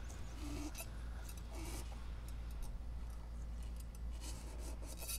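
Faint scraping and rustling handling noises as a spray can's flexible extension tube is worked into the end of a chrome exhaust header pipe, several short scrapes scattered through, over a low steady rumble.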